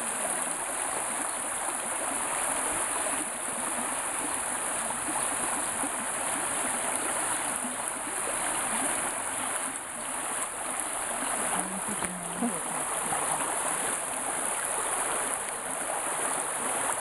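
Muddy floodwater rushing across a road: a steady, continuous flowing noise with a strong high hiss.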